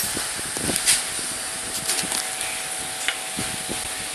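A few light knocks and clicks of hands and tools handling a motorcycle's rear shock absorber and its mounting, the sharpest about a second in, over a steady background hiss.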